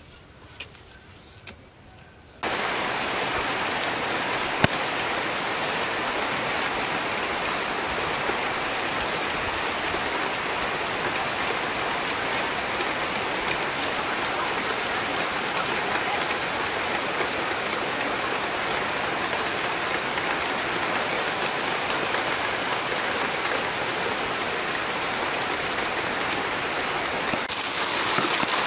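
Hot oil sizzling steadily in a wok as food fries, starting suddenly a couple of seconds in and getting a little louder near the end. Before it, a few faint snaps.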